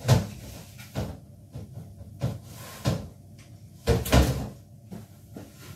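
Plant pots being rummaged through and set down, a string of irregular knocks and bumps with the loudest about four seconds in.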